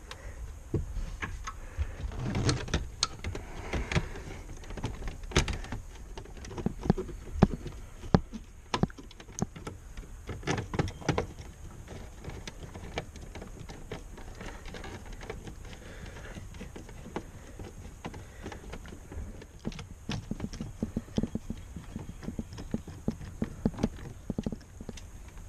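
Irregular clicks, taps and knocks of plastic dashboard trim and wiring being handled and pressed into place while a car's glove box area is reassembled. The clicks are busiest in the first half and again near the end.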